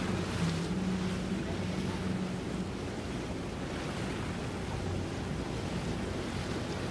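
Wind noise on the microphone over open water, with a boat engine idling as a low hum that shifts slightly in pitch and fades out about two and a half seconds in.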